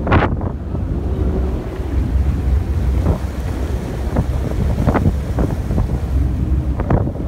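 Wind buffeting the microphone on the deck of a moving boat, with a steady low rumble and the rush of the foaming wake alongside.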